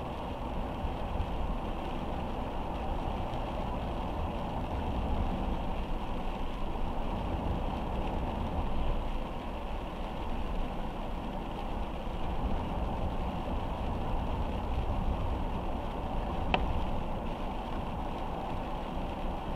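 Car driving in steady rain: a steady low rumble of road and engine noise with a hiss of rain over it, and a single sharp click late on.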